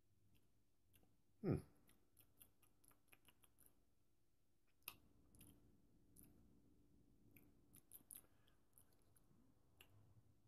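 Faint lip smacks and mouth clicks of someone tasting an oil, with one short louder falling sound about a second and a half in.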